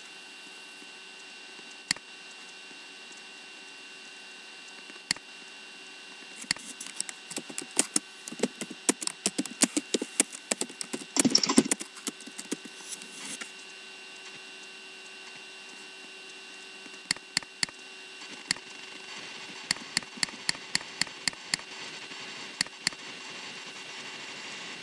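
Typing on a computer keyboard: a quick, uneven run of key clicks for several seconds around the middle, then a sparser string of clicks, over a steady faint electrical hum.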